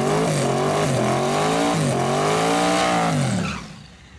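Car engine revving, its pitch climbing and dropping about three times over a steady hiss, then dying away about three and a half seconds in.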